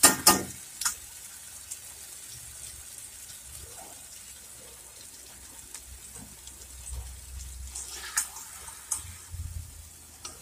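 Spinach and paneer gravy bubbling and simmering in a kadai, a steady low hiss with scattered small pops. A few sharp knocks of a spatula on the pan come in the first second.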